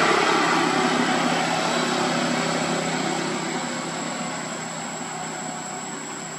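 A motor vehicle's engine running steadily and fading as it moves away.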